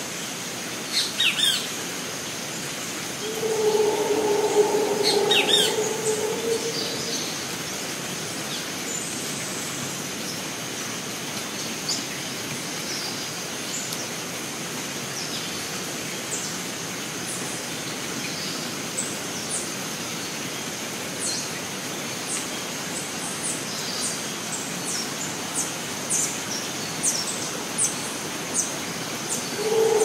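Rainforest ambience: a steady hiss with a continuous high insect buzz, and scattered bird chirps that grow more frequent in the second half. A drawn-out low call sounds for about four seconds near the start.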